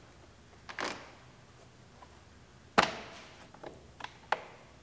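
Plastic interior trim and its twist-lock retaining clips being worked loose by hand: a soft scrape, then one sharp plastic click about three seconds in, followed by a few lighter clicks.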